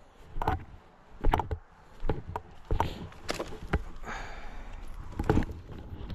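Footsteps through woodland leaf litter: an irregular run of sharp cracks and snaps, about ten in all, with a short rustle of leaves about four seconds in.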